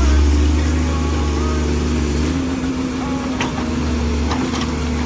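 Komatsu excavator's diesel engine running steadily: a deep, even hum with a steady tone above it, and a few faint ticks in the second half.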